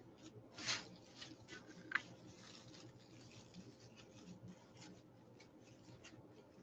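Faint rustling and crinkling of ribbon being handled and worked onto a wreath frame. A louder swish comes about two-thirds of a second in, and a small click about two seconds in.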